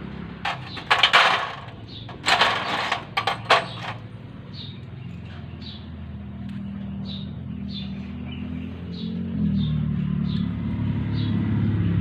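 Metal engine parts and tools clinking and clattering in a few quick bursts during the first four seconds. Behind them runs a steady engine hum that swells and rises in pitch near the end.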